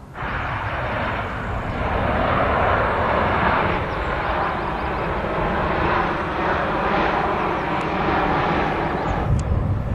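Jet airliner flying past close by on approach to land, its engines making a loud, steady rushing noise with a low steady hum in the second half. The noise starts suddenly and cuts off about nine seconds in.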